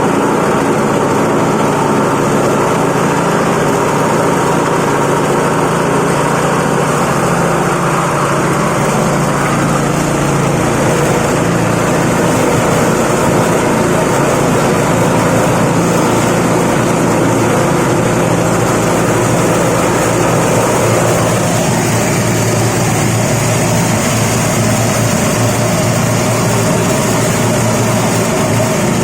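Multi-purpose feed grinder and grass chopper machine running steadily, with a slight shift in its tone about two-thirds of the way through.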